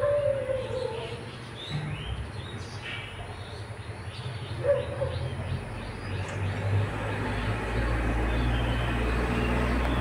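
Birds chirping, with short sweeping calls in the first half, and a low engine rumble building from about halfway through.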